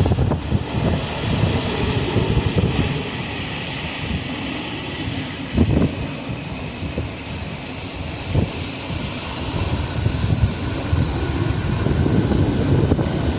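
Hurricane-force wind in the inner eyewall of a major hurricane, blowing steadily in heavy gusts that buffet the microphone, with two sharper thumps about six and eight seconds in.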